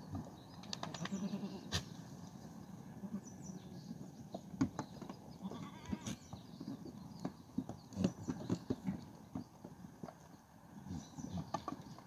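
Goats bleating, one call about a second in, over scattered sharp taps and knocks of goat kids' hooves on a metal feed trough.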